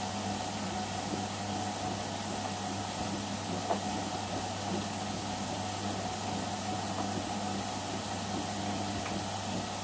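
Bendix Duomatic front-loading washer-dryer in its wash, the drum turning and tumbling a full load of wet clothes over a steady motor hum and a constant swishing, with one light knock about four seconds in.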